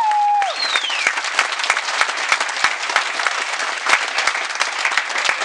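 Live audience applauding at the end of a song, dense clapping throughout, with a high falling whistle from the crowd about half a second in.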